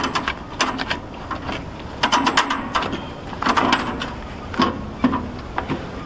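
Steel bandsaw blade of a Woodland Mills HM130 Max sawmill clicking and rattling against the wheel and housing as it is worked up and around the wheel, in four or so bursts of clatter.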